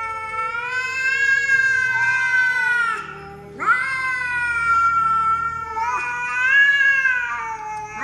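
Cat yowling in a nose-to-nose standoff with another cat: long, drawn-out, wavering yowls. They break off about three seconds in, and a new yowl starts with a sharp upward swoop.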